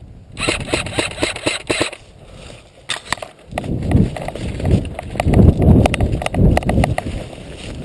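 Airsoft rifle firing a fast burst of about a second and a half, then loud low rustling and knocks.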